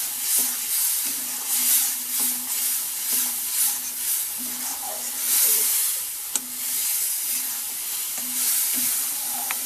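Onions and ground masala paste sizzling in hot oil and ghee in a steel kadhai while being stirred with a spatula; the sizzle swells and fades with the stirring.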